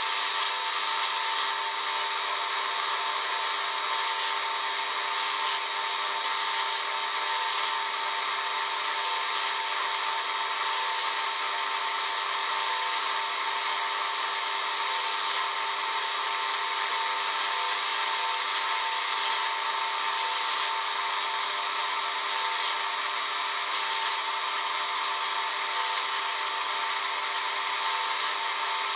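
Drill press running steadily with a constant whine, its twist bit cutting into a steel flat bar.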